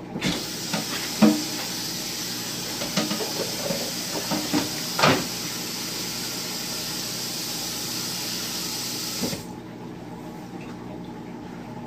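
Kitchen tap running into the sink, a steady hiss of water that is turned on abruptly and shut off about nine seconds later. A few knocks of things set down in the sink sound over it, the sharpest about a second in.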